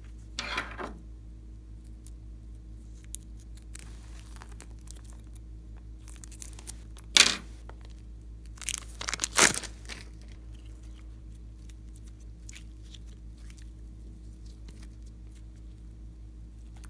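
Plastic piping bag crinkling and crackling as it is squeezed, in a few short bursts, the loudest about seven seconds in and another cluster about two seconds later. A steady low hum runs underneath.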